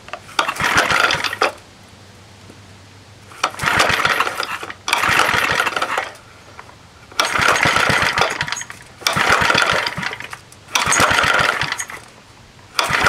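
Unprimed old 2 hp Briggs & Stratton engine being pull-started by its recoil rope: seven pulls, each about a second of cranking, with short pauses between, and the engine never settles into running.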